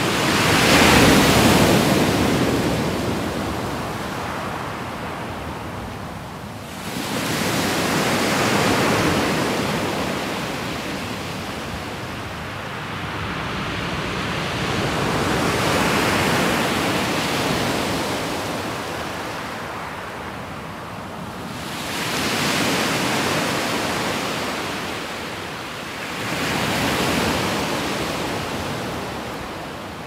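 Small waves breaking and washing up a pebble beach, the surf swelling and ebbing every few seconds, strongest about a second in.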